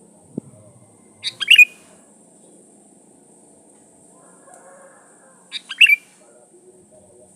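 Sooty-headed bulbul (kutilang) singing two short phrases about four seconds apart, each a quick run of notes ending in a falling note.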